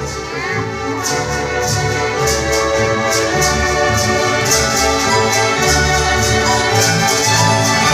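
Orchestra playing sustained full chords, with sleigh bells shaken in a steady rhythm of about three to four strokes a second.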